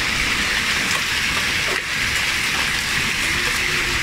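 Hail and heavy rain pelting down onto grass and pavement: a steady hiss of falling stones and water.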